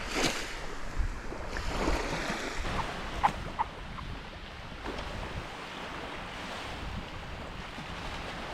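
Surf washing on the beach, with wind buffeting the microphone in a few low thumps during the first couple of seconds.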